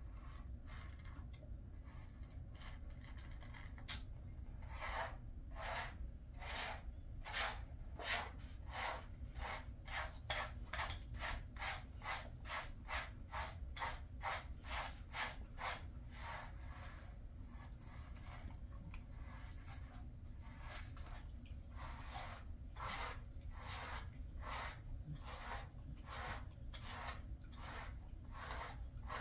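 A grooming brush raked through a Jindo dog's coat in quick, scratchy strokes, about two a second, with a pause of a few seconds past the middle before the strokes resume.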